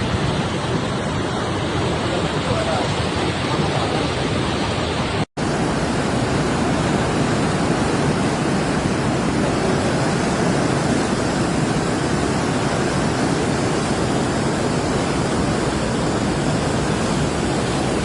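Steady, loud rush of fast-moving floodwater. It cuts out for an instant about five seconds in, then goes on unchanged.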